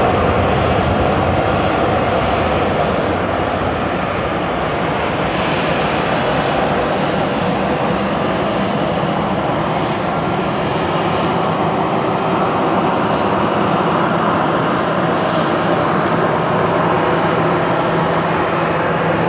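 A Boeing 777's twin GE90 turbofans at takeoff thrust. The engine noise is loud and steady as the jet rolls down the runway, lifts off and climbs away, with a low hum growing stronger in the second half.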